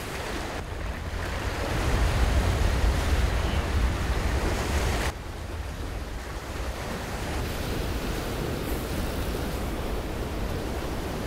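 Ocean surf washing against a rock jetty, with wind buffeting the microphone as a low rumble through the first five seconds. The sound drops abruptly about five seconds in, and steady surf noise continues.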